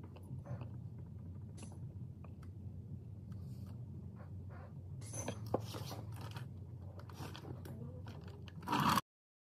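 Light scrapes and knocks of a hand tool working at a semi truck's steer-wheel hub cap, with a sharper knock about halfway and a louder clatter near the end, over a steady low hum. The sound cuts off suddenly near the end.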